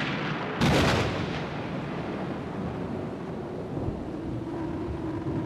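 A thunderclap: a sharp, loud crack about half a second in, then a long low rumble that lingers as the storm arrives.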